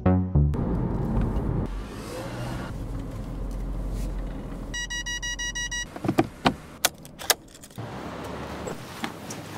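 A car engine running with a low rumble, heard from inside the car. Near the end of the engine sound an electronic warning chime in the car beeps rapidly for about a second, then the engine stops and a series of sharp clicks and knocks follows.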